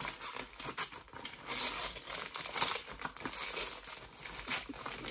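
Wrapping paper crinkling and tearing in irregular rustles and crackles as a present is unwrapped by hand.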